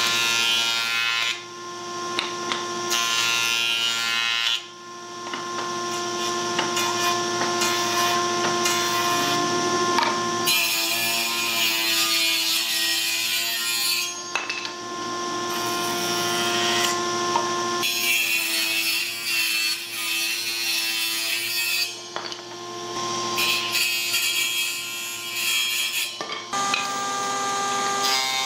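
Electric woodworking power tools running and cutting wood: a steady motor whine with stretches of harsher cutting noise that start and stop every few seconds.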